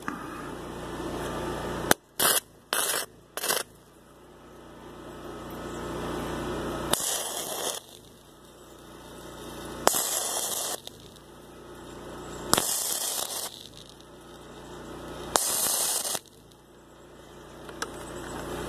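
Stick (arc) welder crackling and hissing as the rod strikes: a few very brief arc strikes about two seconds in, then four separate welds of about a second each, a few seconds apart. These are short tack welds laid one at a time so as not to blow through the thin-wall EMT conduit.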